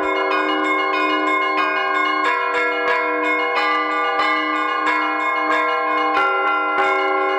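Church bells pealing: several bells of different pitches struck in a fast, steady rhythm, about two or three strikes a second, each tone ringing on under the next strike.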